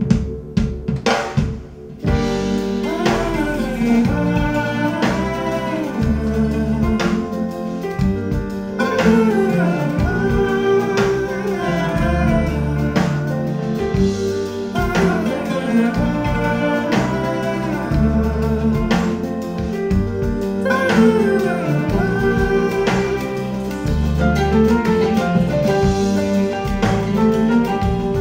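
Recorded music played through Cabasse Antigua MC170 loudspeakers: an instrumental stretch of a song with drums and melodic instruments, opening with a few sharp drum hits.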